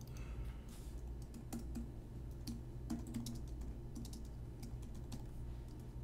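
Typing on a computer keyboard: an irregular run of light keystrokes as a short phrase is typed, over a steady low hum.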